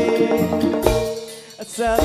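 Live Javanese band music with drum strokes and held chords. The music drops away briefly about three-quarters of the way through, then comes back in.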